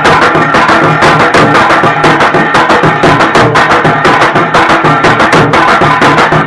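Loud music with a fast, steady drum beat.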